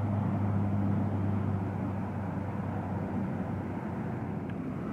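Steady rush of interstate freeway traffic, with a low hum held under it throughout.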